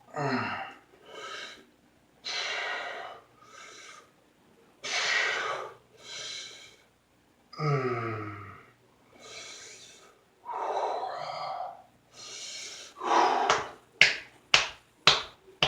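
A man breathing hard through flexing, loud heavy breaths in pairs, a strong one then a softer one, about every two and a half seconds. Twice a short throaty voiced sound falls in pitch at the start of a breath, and near the end come five quick sharp smacks.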